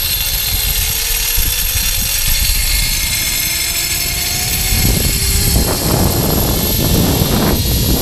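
Zip-line trolley running down the steel cable, its pulleys whining with a pitch that slowly rises as speed builds. Wind rushes over the microphone, growing louder from about halfway through.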